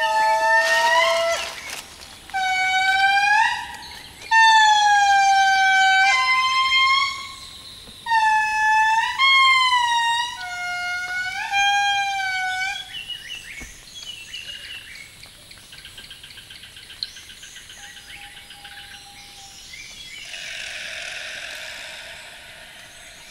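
Indri singing: a series of loud, drawn-out wailing notes that swoop up and down in pitch, dying away after about 13 seconds. Faint insect buzzing follows.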